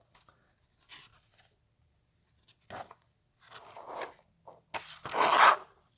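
A comic book being handled: paper pages and its plastic bag rustle in short scattered bursts, the loudest about five seconds in.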